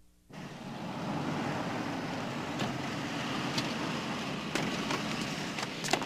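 A car running steadily, heard as an even engine-and-road noise. It starts about a third of a second in, after a moment of near silence.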